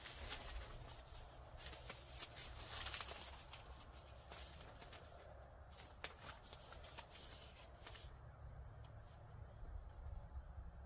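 Faint paper rustling as the pages of an instruction manual are leafed through: scattered short crinkles and flicks, thinning out in the second half.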